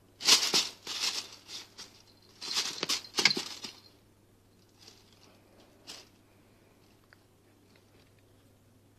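Plastic bag crinkling and rustling as a cat scrabbles on it, in two bursts of about a second and a half each, followed by a couple of faint rustles.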